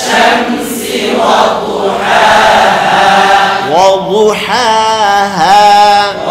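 A man's voice chanting Quran recitation in Arabic in a drawn-out melodic style, holding a long steady note in the middle and then sweeping the pitch up and down in ornamented runs near the end.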